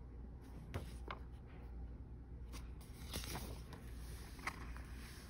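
Faint paper handling of a picture book: a few light rustles and taps as a page is turned by hand.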